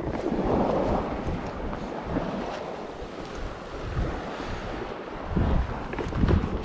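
Wind gusting against the microphone in uneven low rumbles, over a steady rush of sea-front noise.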